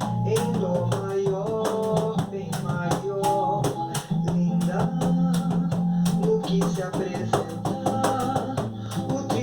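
Cajón strikes played along to a recorded samba song with acoustic guitar, keeping a steady beat of sharp slaps over the guitar.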